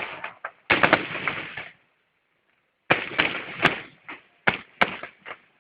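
Fireworks going off in a salute: a series of sudden bangs, about four, each trailed by crackling, with short gaps between them.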